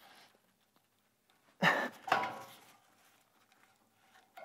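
Two clunks from the exhaust about half a second apart, as a rubber exhaust hanger is forced back onto its metal hanger rod.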